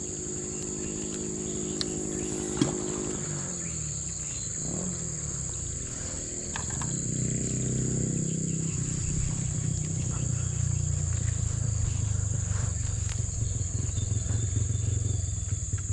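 Steady high-pitched drone of insects (crickets or cicadas), with a few sharp clicks in the first few seconds and a low rumble that swells up about seven seconds in and carries on.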